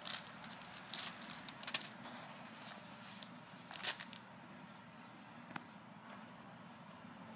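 Rustling and crackling of camera packaging being handled: several short, sharp crackles in the first four seconds, then quieter, with one faint tick later on.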